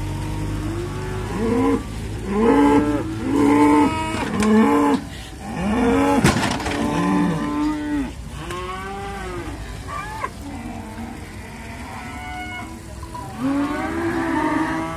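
Cattle mooing over and over, short arching calls coming in quick succession, with a fresh run of calls near the end. A sharp knock about six seconds in.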